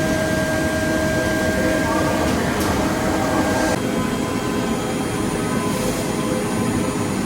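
CNC dental milling machine running steadily while machining denture teeth, a dense machine noise with steady spindle tones that change pitch about four seconds in.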